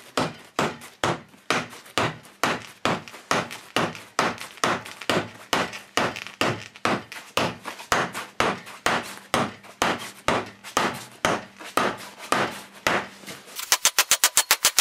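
Repeated hammer blows on an antique hammer head, driving it onto a new cherrywood handle: sharp knocks about three a second that turn faster and sharper, with a ringing note, near the end.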